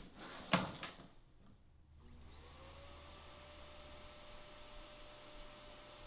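A vacuum cleaner switches on about two seconds in: its motor spins up with a rising whine, then runs steadily. Before that, a few sharp knocks are the loudest sound.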